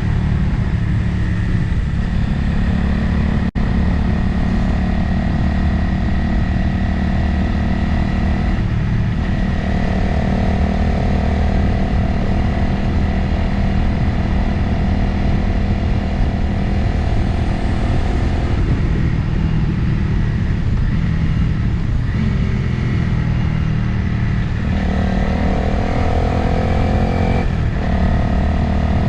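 Motorcycle engine running on the road with wind noise over the microphone, its engine note shifting several times as the throttle and revs change.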